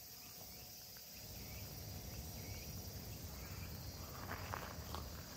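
Steady high-pitched drone of insects in the trees, with a few footsteps on a gravel path near the end.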